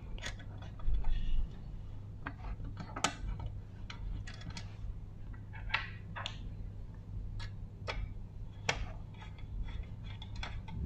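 Light, irregular clicks and ticks of small metal parts being handled as an M3 screw is fitted and driven into the lever linkage of a model steam engine, over a low steady hum.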